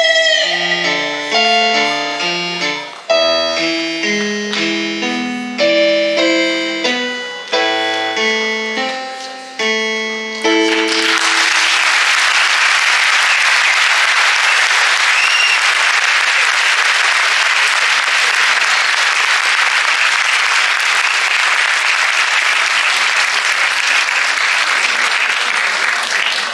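A song's final sung note fades out at the start and a slow keyboard outro follows: single struck notes and broken chords, each ringing away, for about ten seconds. Then the audience breaks into steady applause that runs on to the end.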